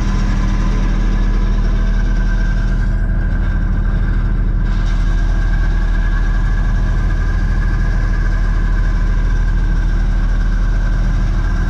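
Camper's drivetrain running in gear at about idle with the right rear wheel off, the bare axle hub and brake rotor turning on jack stands: a steady drone with a thin high whine over it that strengthens about three seconds in. The owner is trying to tell whether the noise is the brakes or a wheel bearing.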